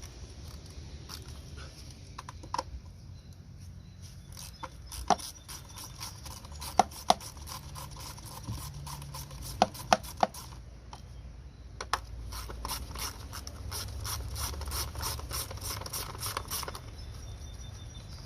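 Ratchet wrench clicking in quick even runs, about three or four clicks a second, on the 10 mm bolt holding an ignition coil, with a few sharp metal knocks in the first half.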